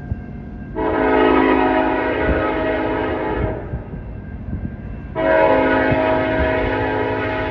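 A CN freight locomotive's air horn sounding two long blasts of a multi-note chord, the second running on past the end, over the low rumble of the passing train.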